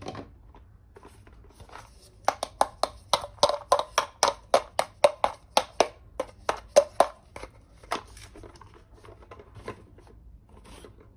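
A quick run of about twenty sharp clicks or taps, roughly four a second, from small toy kitchen pieces being handled, with a few lighter clicks before and after.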